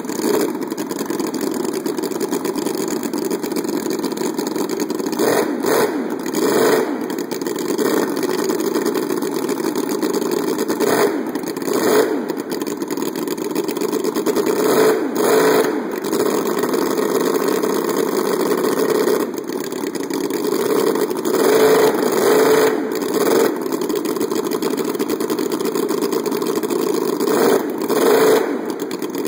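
Miniature V8 model engine running at a fast idle, revved up in short blips several times.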